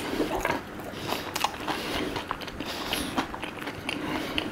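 A person chewing fried food, close to the microphone, with irregular crunches and mouth clicks.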